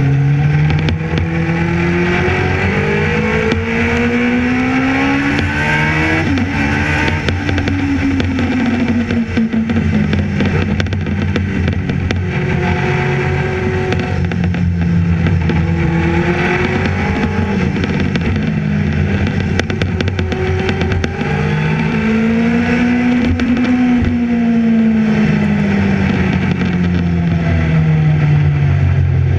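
Racing sidecar outfit's engine heard from its onboard camera, loud and continuous, the revs climbing and falling several times as it accelerates and slows, over a steady rushing noise.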